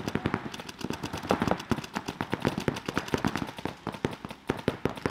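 Paintball markers firing rapid strings of shots, many shots a second, with several guns going at once.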